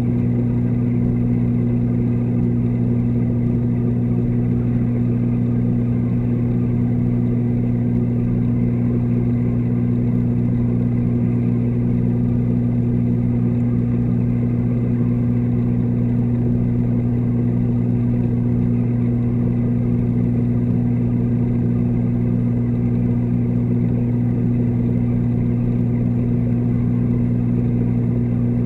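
Aquarium water pumps humming steadily, picked up through the water by the submerged camera: a constant low electric-motor hum with no change.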